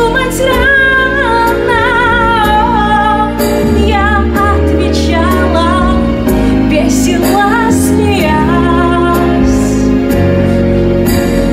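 A woman singing a Russian pop song into a handheld microphone over instrumental accompaniment, her held notes wavering with vibrato.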